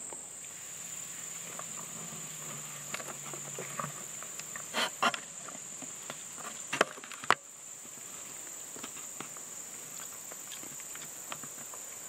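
A steady, high-pitched chorus of insects such as crickets, with a few rustles and sharp clicks from a hand-held camera being handled against camouflage clothing, the loudest about five and seven seconds in.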